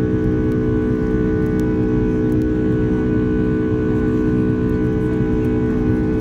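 The unexplained noise of a Boeing airliner on takeoff: a steady, organ-like drone of several held tones over a low rumble. It does not change throughout.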